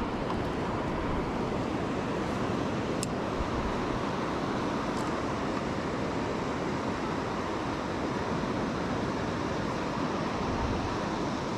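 Steady sea surf washing over a flat beach, mixed with wind buffeting the microphone, with a light click about three seconds in.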